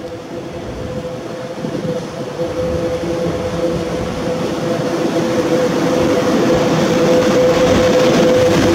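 ET22 six-axle electric freight locomotive hauling a train of loaded open coal wagons, approaching and coming alongside, growing steadily louder. A steady high hum sits over the rumble of the wheels on the rails.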